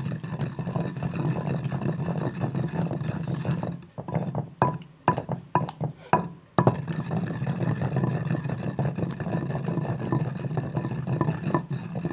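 Yogurt being mashed and stirred into green chutney in a bowl: soft irregular scraping with a few sharp clicks, over a steady low hum that drops out for a couple of seconds midway.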